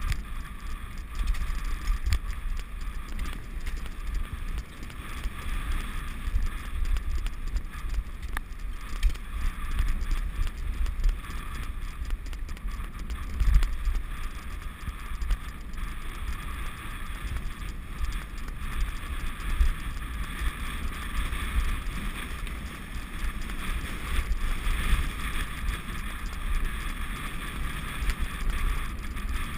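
Wind buffeting the microphone with a steady low rumble and uneven jolts from travelling at speed over a rough dirt track.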